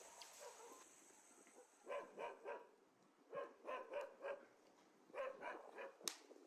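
A dog barking faintly in three quick runs of four to six barks each. A sharp click comes near the end.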